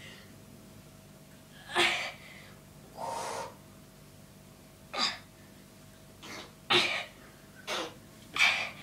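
A boy's gasping breaths of exertion during handstand push-ups, about seven short, sharp breaths at uneven intervals.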